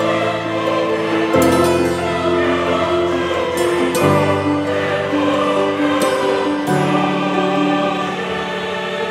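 Background music: choral singing in long held chords that change every two to three seconds.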